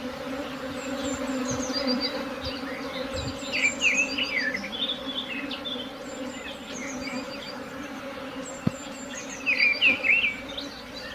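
A honeybee swarm buzzing as a steady hum. Short, high chirps come through twice, about four seconds in and again near the end.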